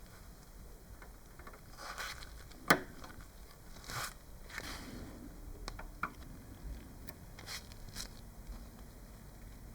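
Scattered light clicks and scrapes from small parts being handled, with one sharp click about three seconds in.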